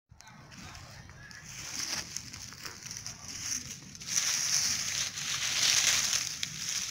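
A hand rummaging in and grabbing handfuls of dry pine needles on the ground: a crackling rustle that grows louder about four seconds in.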